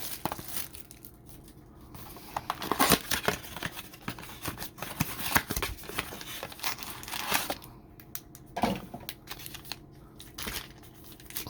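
Trading card packaging being opened by hand: intermittent crinkling and tearing of a blaster box and its foil card pack wrappers.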